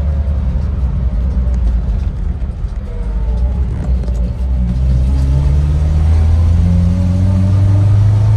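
Mazda 1800's four-cylinder engine and road noise heard from inside the cabin on the move. About five seconds in, the engine note climbs and grows a little louder as the car accelerates.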